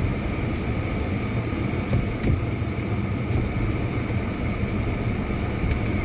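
Steady low vehicle rumble with a faint steady high whine and a few light clicks.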